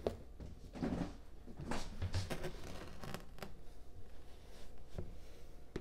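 Metal measuring cup scooping and scraping through granulated sugar in a plastic storage bin: several short, irregular gritty scrapes and rustles.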